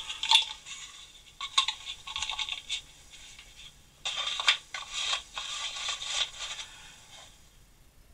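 Small metal tools clinking, rattling and scraping as they are handled and laid into a wooden drawer, in three bouts of clicks and scrapes with short pauses between.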